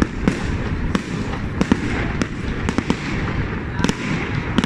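Fireworks display: about a dozen sharp, irregularly spaced bangs over a continuous low rumble of explosions.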